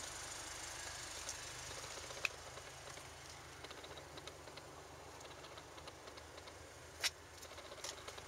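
Volkswagen Golf R engine idling with a steady low hum. Two sharp clicks come about two and seven seconds in.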